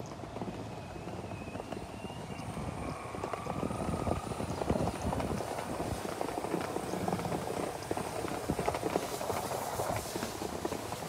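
Wheels of a DIY belt-driven electric skateboard rolling over a paving-slab path, a rough clatter of rapid clicks as they cross the joints, getting louder about four seconds in.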